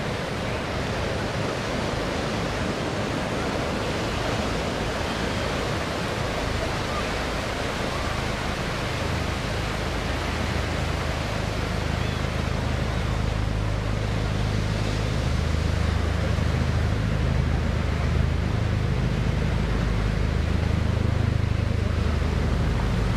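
Distant MH-53E Sea Dragon helicopters' rotors and engines: a low rumble that grows louder from about halfway through, over a steady rushing noise.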